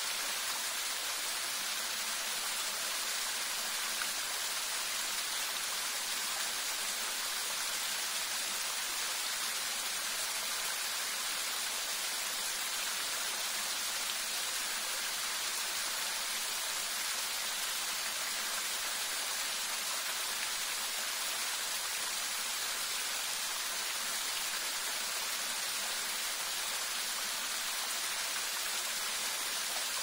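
Small waterfall, several thin streams spilling over a rock wall and splashing into a shallow pool: a steady, unbroken hiss of falling water.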